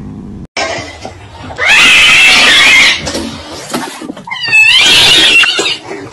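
A fluffy domestic cat screeching at its own reflection in a mirror: two loud, harsh cries of over a second each, the second starting with a few short wavering wails.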